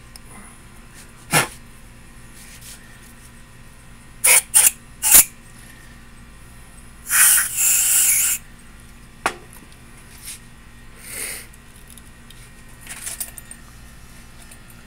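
Aerosol can spraying through a thin straw into a freshly tapped bolt hole in an aluminum cylinder head: three quick short hisses, then one longer hiss of about a second. A sharp click comes before them and another after.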